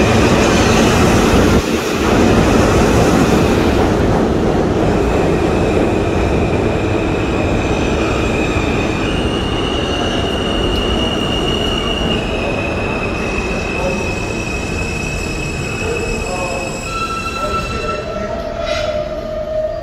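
R160 subway train pulling into the station and braking: steel wheels rumbling on the rails with high, steady squealing tones that shift in pitch. The rumble fades as the train slows, and lower steady tones come in near the end as it nears a stop.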